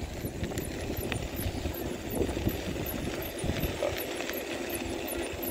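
Wind rush and rumble on the microphone while riding an iSinwheel S9 Max electric scooter, with a faint steady whine of its motor coming in about halfway through.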